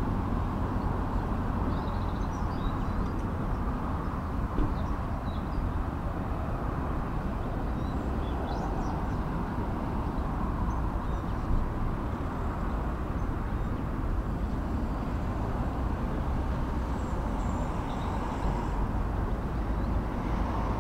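Steady outdoor background rumble and hiss, with a few faint high chirps and a couple of soft knocks.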